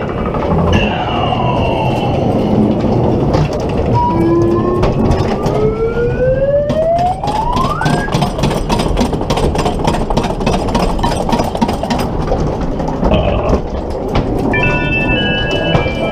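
Ghost train car rumbling and rattling along its track, with the ride's spooky sound effects over it: a siren-like tone gliding down about a second in, then a slower wail rising over about four seconds. A stretch of rapid clicking and clatter follows, and near the end a high electronic warble starts.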